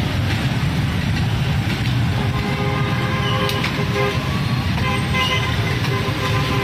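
Busy street traffic: motorcycle and car engines running in a steady rumble, with vehicle horns honking now and then.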